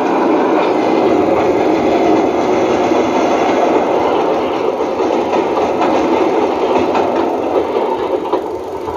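Elmo GS 1200 Super 8 sound projector running a stereo test film, a steady unbroken mechanical running noise.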